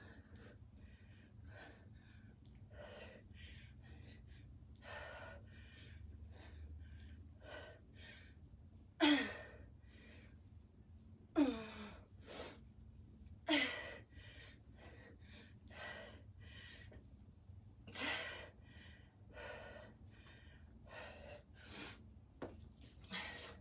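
Hard breathing of a woman working through a set of kettlebell goblet squats: short, sharp breaths about once a second, with a few louder voiced exhales that drop in pitch.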